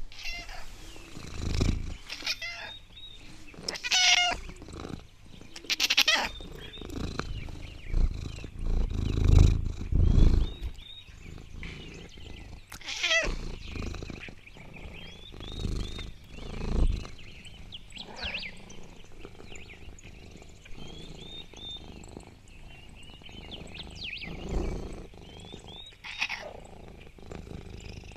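Cat vocalizations: calls and purr-like sounds in irregular bursts, some deep and loud, others higher and bending down in pitch.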